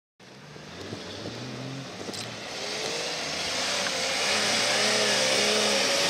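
Jeep Cherokee XJ engine revving hard under load as it climbs a steep dirt bank, its pitch wavering up and down as the tyres spin and throw dirt. It starts a fraction of a second in and grows louder over the first few seconds.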